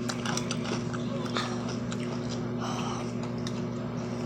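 Close-up chewing and crunching of fried chicken strips: irregular crisp clicks and crackles of biting and mastication. A steady low electrical hum runs underneath.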